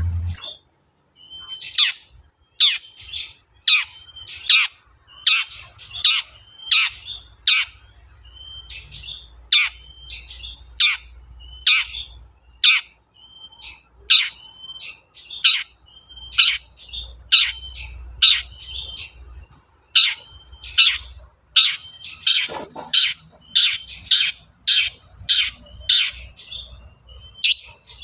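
Long-tailed shrike (cendet) singing energetically: a run of sharp, downward-slurred calls repeated about once or twice a second, with short high chattering notes between them, coming faster near the end.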